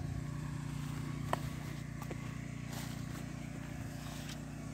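Small engine of a motorized crop-sprayer pump running steadily at a distance, a constant low hum, with a few faint clicks over it.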